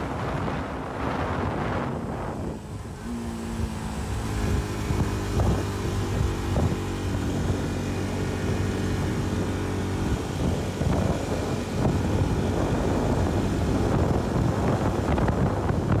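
Motorcycle engine running on the move, mixed with wind buffeting the microphone. The wind rush covers it for the first couple of seconds and again in the last third, while the engine's steady note comes through clearly in between.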